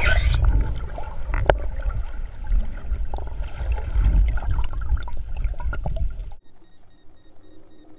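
Sea water sloshing and splashing around a dive boat, with a heavy low rumble of water or wind on the microphone and scattered knocks. The sound cuts off suddenly about six seconds in, leaving only a faint, evenly repeating beep.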